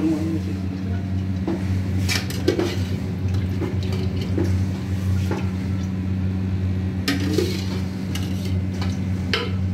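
Metal spoon scraping and clinking against a tin of ghee and a steel karahi as ghee is scooped out and dropped into the pan, with a few sharp clinks over a steady low hum.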